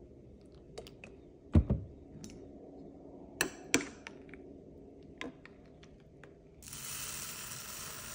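A metal spoon knocking and clinking against a ceramic bowl of rice porridge a handful of times, the loudest a dull thump about a second and a half in. About two-thirds of the way through, dry glutinous rice starts pouring into a pot with a steady rushing rattle of grains.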